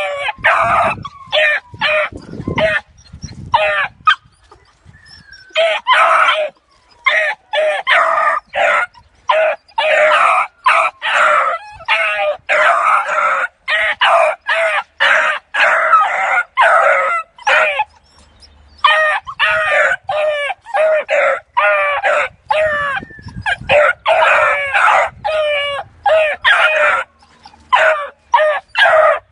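A litter of beagle puppies yelping and baying in rapid, overlapping high-pitched calls, excited at a caged rabbit. The calls pause briefly twice.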